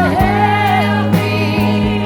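Background music: a pop song with a sung melody over steady held instrumental chords.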